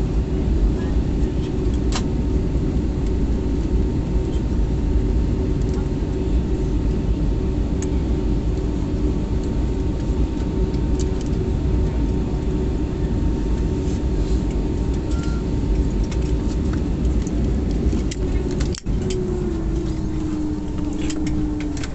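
Steady cabin rumble of an Airbus A321neo with a constant hum. Near the end the sound cuts out for an instant and a whine begins slowly falling in pitch: the engines spooling down after shutdown. Scattered small clicks, like seatbelt buckles, sound among it.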